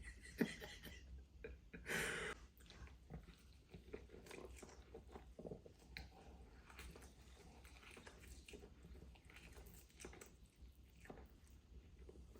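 A person chewing a mouthful of spicy instant noodles with small wet mouth clicks, quiet overall. There is a sharp click just under half a second in and a louder breathy burst about two seconds in.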